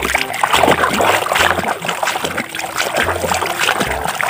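Muddy water splashing and sloshing in a tub as a hand scrubs a toy truck back and forth under the surface, in quick, uneven splashes.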